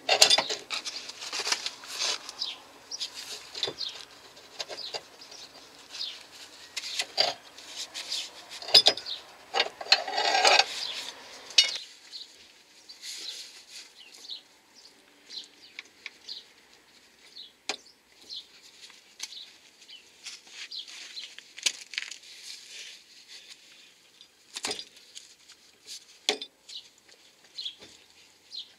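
Metal suspension parts clinking, knocking and rubbing as the new lower control arm's ball joint is worked into the steering knuckle of a Peugeot 206's front suspension. A busy stretch of clatter for about the first twelve seconds gives way to sparse single clicks.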